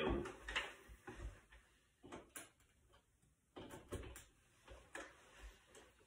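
Faint scattered clicks, knocks and rustles as an upright vacuum cleaner's power cord is unwound and its plug is pushed into a wall socket; the vacuum motor is not running.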